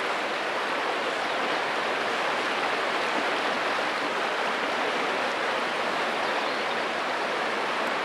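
Steady rush of a river's current running over stones.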